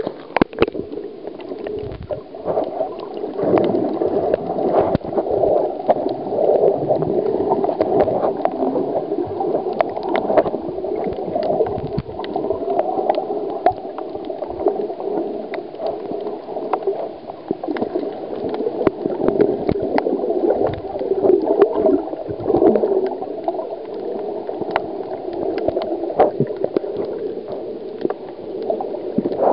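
Underwater sound picked up by a camera held below the surface: a muffled, steady rush and gurgle of water, with many scattered sharp clicks and crackles.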